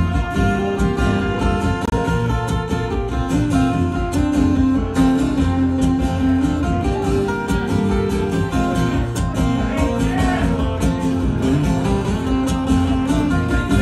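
Steel-string acoustic guitar played solo, a continuous flow of picked notes and chords ringing on.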